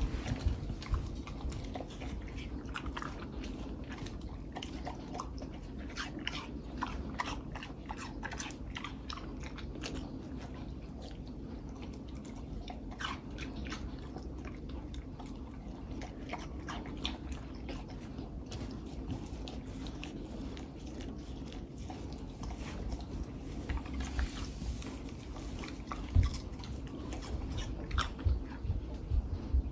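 A dog eating cubes of watermelon, with wet, irregular chewing, biting and crunching of the juicy fruit.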